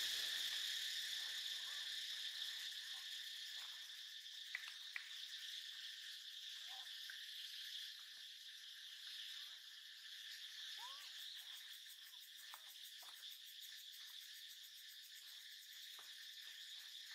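Insect chorus droning steadily as a high, continuous buzz, with faint clicks and short chirps now and then.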